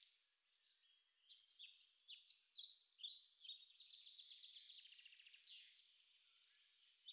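Faint birdsong: many short high chirps, quick pitch slides and rapid trills from several overlapping notes, busiest through the middle.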